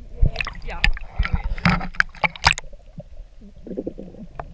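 Water sloshing and knocking around a camera held underwater in a lake, with a quick run of sharp clicks and splashes over the first two and a half seconds, then quieter, muffled sloshing.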